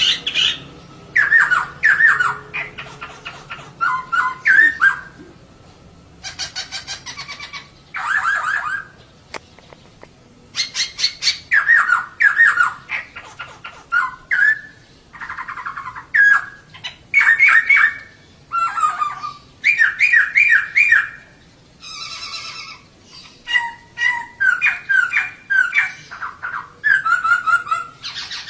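Female poksay (laughingthrush) calling: phrase after phrase of quick, chattering and squawking notes, each burst lasting about a second with short pauses between.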